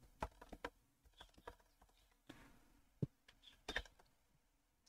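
Faint, scattered keystrokes on a computer keyboard: a quick run of clicks near the start, then single clicks spread out, with slightly louder ones about three and four seconds in.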